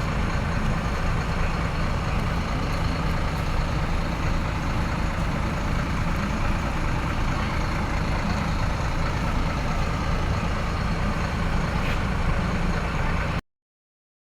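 Tour bus's diesel engine running steadily, an even low drone that cuts off abruptly shortly before the end.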